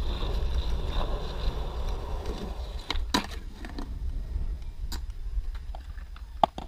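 Skateboard wheels rolling on concrete, a low steady rumble, with a few sharp clacks of the board about three, five and six and a half seconds in.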